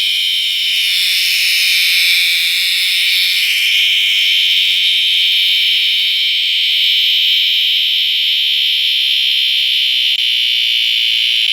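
Male cicada calling at close range: a loud, steady, high-pitched buzz that holds without a break, loud enough to hurt the ears.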